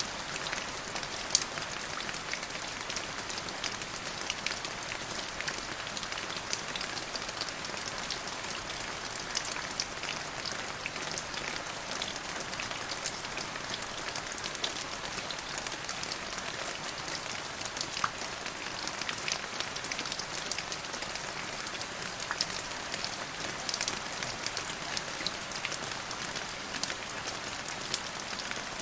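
Steady rain falling, a dense even hiss with many sharp individual drop ticks scattered through it.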